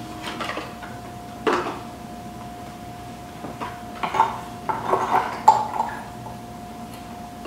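Small clinks, taps and rattles of ceiling-fan light-kit parts and light bulbs being handled, with one sharper clack about a second and a half in and a busier run of clatter about four to six seconds in, over a steady faint hum.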